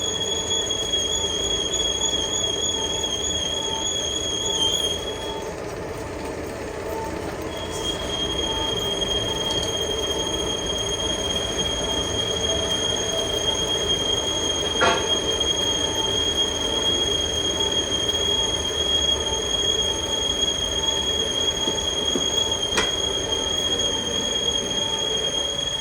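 Heavy boring machine cutting a steel pipe: a steady high-pitched squeal over a faint regular ticking about twice a second. The squeal wavers at first, breaks off for about two seconds, then resumes steadily. Two sharp clicks sound later on.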